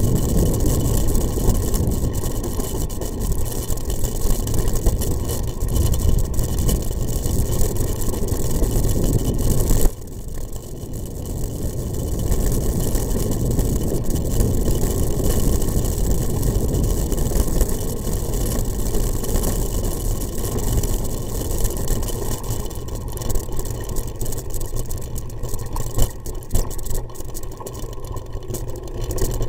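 Engine of a vehicle running steadily as it travels a rough dirt forest track, heard through a small onboard camera. The sound drops suddenly about ten seconds in and builds back up, with a few sharp knocks near the end.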